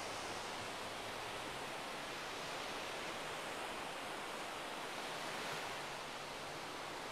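Small sea waves washing up on a sandy beach, a steady, even rush of surf.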